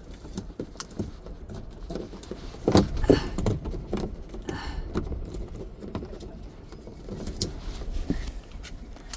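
Irregular clicks, knocks and rustling from hands handling a GoPro camera and pushing it into its mount, with a louder cluster of knocks about three seconds in.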